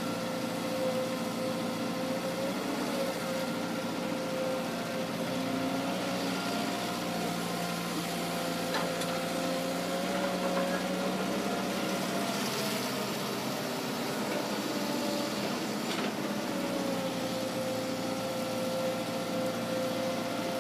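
Old Caterpillar tracked hydraulic excavator's diesel engine running under load as the machine digs soil and swings to load a dump truck. The engine note steps up about a third of the way in and settles back lower near the end, with a few faint clanks of the bucket and linkage.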